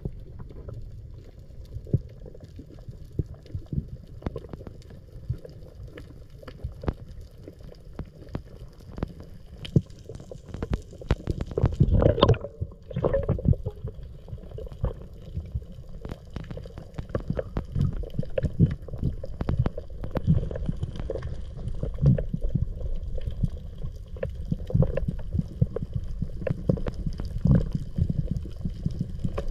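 Underwater sound heard through a submerged camera: a muffled low rumble with scattered clicks and crackles throughout, and a louder gurgling rush about ten to twelve seconds in.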